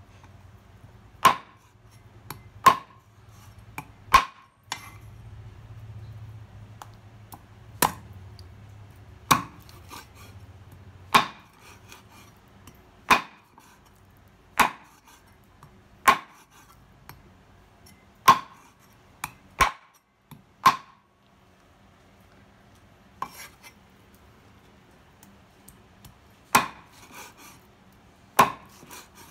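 Large cleaver chopping through a raw pork tail into a round wooden chopping board: sharp chops about every second and a half, each with a short woody ring, pausing for a few seconds past the middle.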